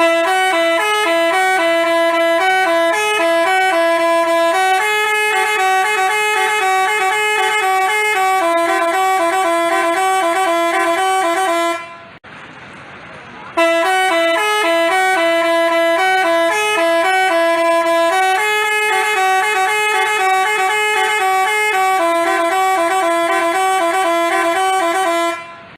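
Basuri telolet bus horn playing a tune of quickly changing notes. It plays in two long phrases of about twelve seconds each, with a short break between them.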